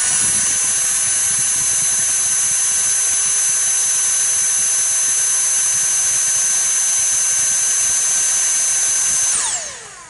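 Dyson cordless stick vacuum running at a steady speed, with a high-pitched motor whine over rushing air. It is switched off about nine seconds in, and the whine falls in pitch as the motor slows.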